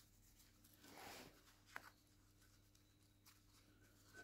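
Faint scraping of an Allen key turning out a small screw from the catch under an old cast-iron bench vice, with two light metallic clicks just before the two-second mark, over a low steady hum.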